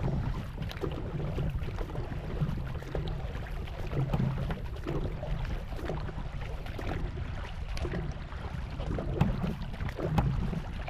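Canoe paddle strokes dipping and splashing in the water, repeating every second or so, over a steady low rumble of wind on the microphone.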